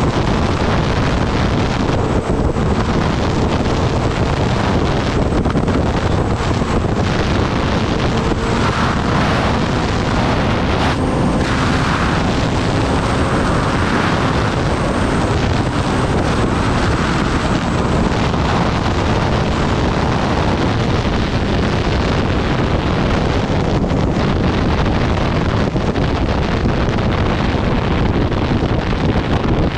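Steady, loud wind noise buffeting the microphone on a Kawasaki Ninja ZX-10R at speed, with the bike's inline-four engine running faintly underneath.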